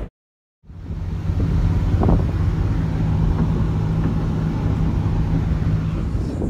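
Car driving at road speed, heard from inside the cabin: a steady low drone of engine and tyre noise. It drops out completely for about half a second just after the start, then carries on unchanged.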